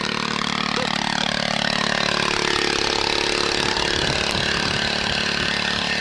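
Honda GX340 11 HP single-cylinder engine running steadily, its note growing rougher and less even partway through.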